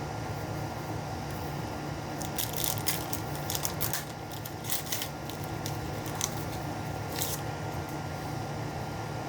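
Trading cards being handled and flipped through, a scatter of short rustles and clicks, over a steady low room hum.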